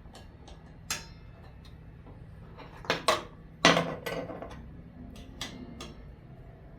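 Metal wrench clinking and knocking against the table saw's arbor nut and blade while the blade bolt is tightened. A few scattered clinks, then two or three sharper clanks with a short ring about three to four seconds in.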